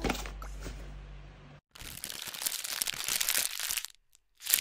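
Background music cuts off about a second and a half in. It is followed by paper crinkling and crumpling for about two seconds, which pauses briefly and starts again just at the end.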